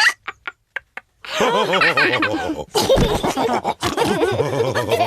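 Cartoon pig characters laughing together, several voices at once: a few short bursts, a brief pause, then loud overlapping laughter from about a second in.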